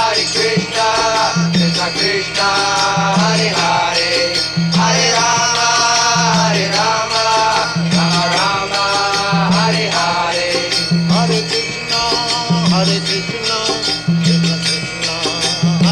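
Devotional kirtan: voices chanting together over hand cymbals jingling and a steady low drum beat.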